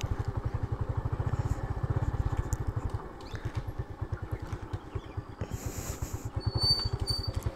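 Motorcycle engine running at low road speed, an even low pulsing beat that eases off and drops in level about three seconds in. A few short high chirps come near the end.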